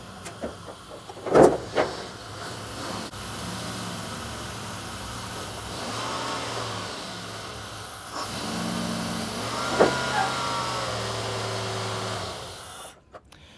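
1995 GMC pickup's engine running at low speed as the truck creeps up onto a wooden-decked trailer, with a sharp clunk about a second and a half in and another near ten seconds.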